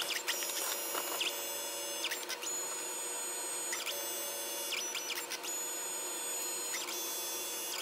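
Polaroid Hi-Print 2x3 pocket dye-sublimation printer running a colour pass, its feed motor whirring as the paper moves out and back in. The whirr carries a steady high whine, with several short swooping chirps as the motor changes speed.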